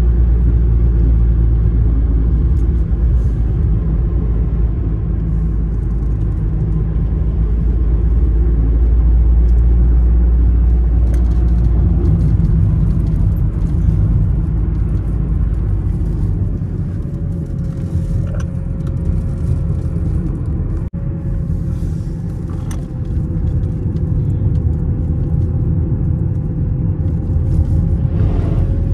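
Steady low rumble of a car being driven, heard from inside the cabin, with a faint steady whine coming in past the middle.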